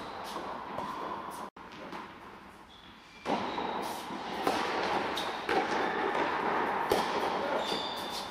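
Tennis being played on an indoor court: after a brief lull, a serve is struck a few seconds in, followed by racket hits and ball bounces about every second, with a few short high squeaks from shoes on the court.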